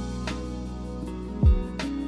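Background music: sustained instrumental notes over a deep drum beat, with one drum hit about one and a half seconds in.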